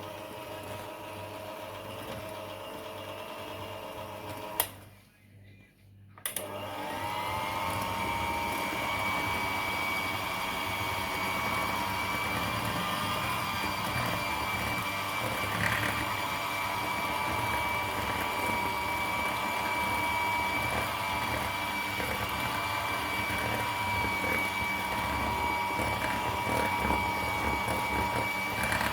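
Electric mixer beating cake batter with a steady motor whine. About four and a half seconds in it clicks off for a second and a half, then clicks back on, its pitch rising as it spins up to speed.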